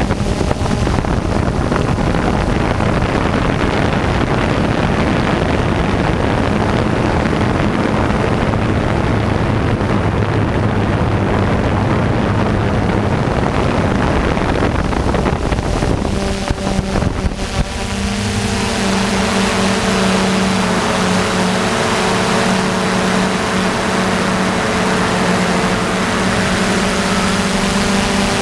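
DJI F550 hexacopter's motors and propellers, heard through the onboard camera, running with a steady hum and wind rushing over the microphone. A little over halfway through the hum briefly dips and shifts pitch, and a brighter hiss comes up over it.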